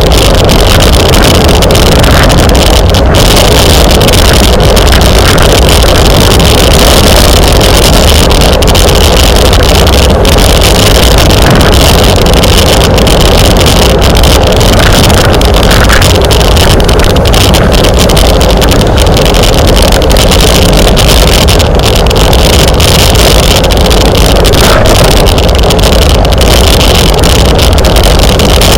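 Loud, steady wind buffeting on the microphone of a camera riding along on a racing bicycle at speed: a continuous rumbling rush that never lets up.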